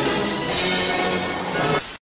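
Music with sustained instrumental chords, cutting off suddenly at the very end.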